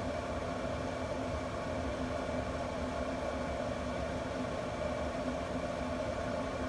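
Camp Chef pellet grill's combustion fan running, a steady hum with several held tones over a low rumble.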